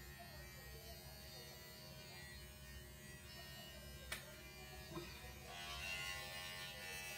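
Electric pet hair clippers buzzing steadily while shaving a cat's fur short, with a sharp click about four seconds in and a louder, noisier stretch near the end.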